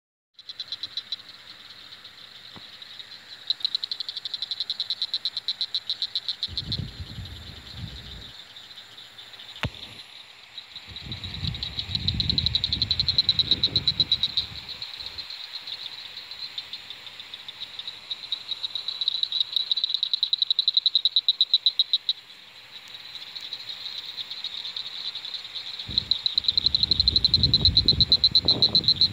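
Chorus of frogs calling, a continuous high, rapid trill that swells and fades. A low rumble comes and goes three times, around a quarter of the way in, near the middle and near the end.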